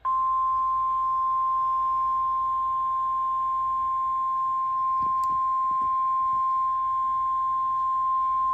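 NOAA Weather Radio's 1050 Hz warning alarm tone: a single steady high-pitched tone held without a break. It signals that a weather warning message is about to be broadcast.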